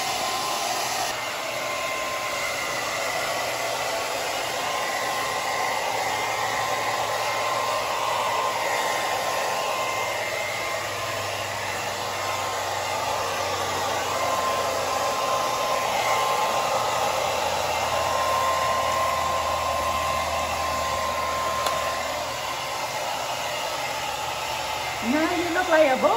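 Handheld hair dryer blowing steadily with a faint whine while blow-drying a dog's thick fur, with a brief louder burst of gliding sounds at the very end.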